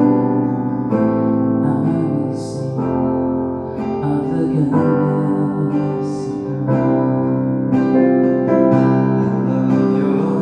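Digital keyboard with a piano sound and an acoustic guitar playing a worship song together, the chords changing about once a second.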